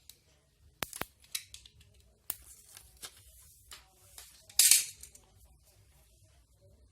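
Handling noises: several sharp clicks and taps in the first couple of seconds, then a loud, brief rustle or scrape a little past the middle.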